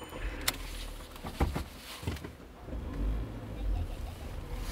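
Car sound effect: a click and a couple of thumps, then a car engine running with a low rumble that swells about three seconds in and again near the end.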